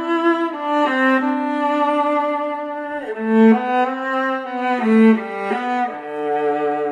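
Solo viola playing a slow bowed melody of long held notes, dubbed over the picture as a separate studio-style recording.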